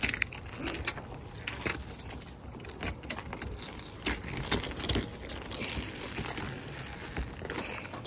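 Thin sheet of ice glazing a car's hood cracking and crunching as fingers press and push it off the paint: a string of irregular crackles and snaps.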